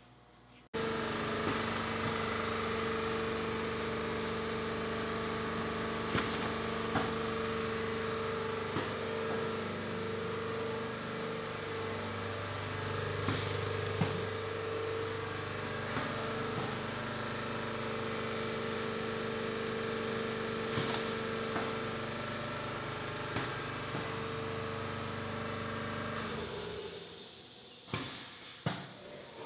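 Automatic carousel screen-printing press running with a steady machine hum and scattered clicks and knocks. The hum starts abruptly just under a second in and stops suddenly near the end, leaving a few separate knocks.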